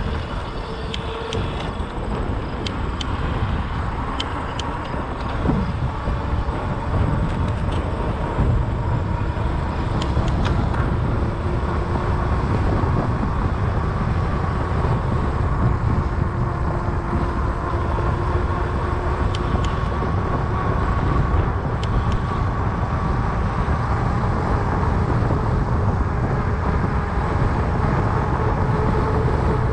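Fat bike rolling along an asphalt path: a steady low rumble of wind and tyre noise on the bike-mounted camera's microphone, with a faint drifting tyre hum and a few light clicks.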